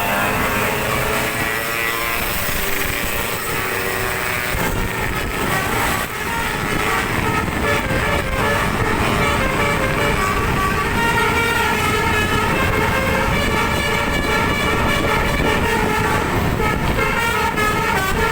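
Bus basuri telolet horn with twelve trumpets playing a tune of stepped notes over vehicle noise, the notes clearest in the second half.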